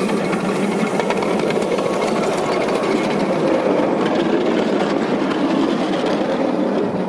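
Ride-on miniature railway train passing close by, a small locomotive followed by a string of little passenger cars, its wheels rumbling steadily on the narrow-gauge track with faint clicks.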